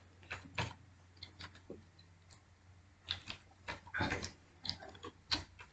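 Computer keyboard keystrokes: about a dozen separate soft key presses at an uneven pace, several close together about four seconds in, as Enter is pressed to step through the entry fields.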